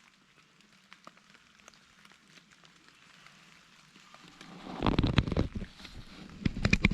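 Faint scattered ticks, then from about four and a half seconds in a run of loud, irregular rustling and knocking close to the microphone, heaviest near the end.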